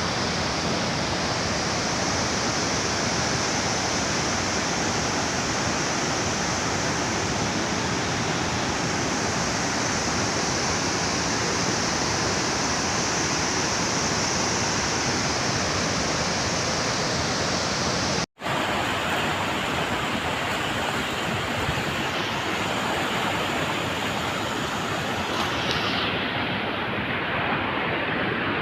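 Water roaring through the outlet gates of a large reservoir dam: a steady, loud rushing roar. It cuts out for an instant about 18 seconds in, then carries on.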